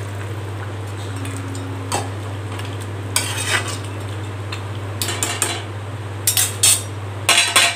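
Slotted metal spatula stirring mutton pieces in a little water in a metal pan, over a steady sizzle. The spatula scrapes and clinks against the pan once about two seconds in and several times in the second half, loudest near the end.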